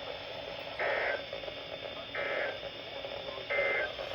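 Emergency Alert System SAME data bursts from a NOAA Weather Radio broadcast: three short bursts of warbling digital tones about 1.4 s apart, over steady radio hiss. Bursts this short are the end-of-message code that closes an alert.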